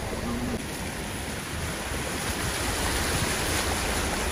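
Steady rush of water as a vehicle's tyres push through shallow floodwater covering the road, with wind noise on the microphone. The rushing grows a little louder about two seconds in.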